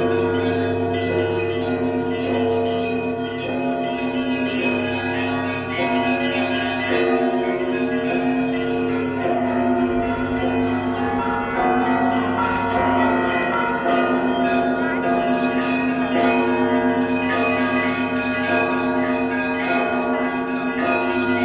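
Russian Orthodox church bells ringing together. Several bells of different sizes sound at once: the deep tones of the big bells hang on under a busy, continuous pattern of strikes on the smaller bells.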